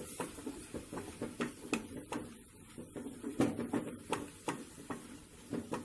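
Wooden spatula stirring and sautéing chopped spinach in a stainless steel kadai, with irregular scrapes and light knocks against the pan several times a second.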